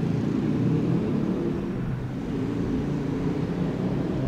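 Steady low engine rumble, with a wavering low hum and little above the low end.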